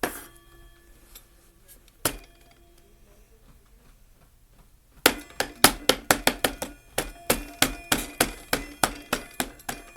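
Old grandfather clock sounding with sharp metallic strikes that ring briefly: a single strike, another about two seconds later, then from about halfway a fast run of clinking strikes, roughly four a second.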